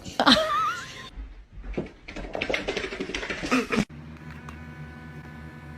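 A pet's short, wavering cry, then a rapid run of clicks and taps for a couple of seconds, then steady held tones of background music.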